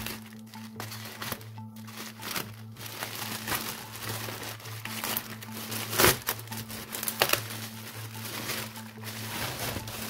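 Plastic mailer bag and bubble wrap crinkling and rustling as a parcel is cut open and the wrapped item is pulled out, with a loud crackle about six seconds in. Background music plays underneath.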